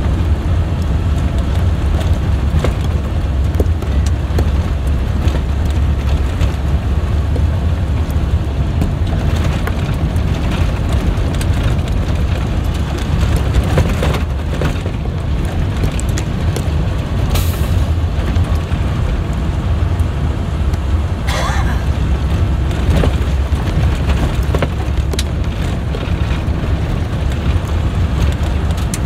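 Converted school bus driving on a rough dirt road, heard from inside the cab: a steady, heavy low engine and road rumble with frequent rattles and knocks as the bus rides over the bumps.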